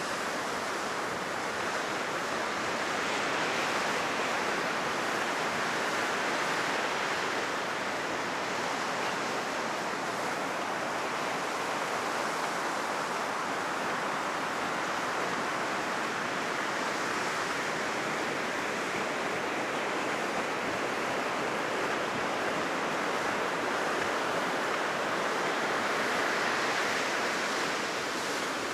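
Heavy surf rolling onto a sandy beach, running as a steady wash that swells and eases slowly; the waves are high in the wake of a typhoon.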